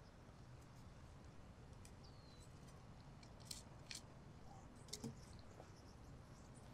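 Near silence with a faint steady hiss and a few faint, short clicks past the middle.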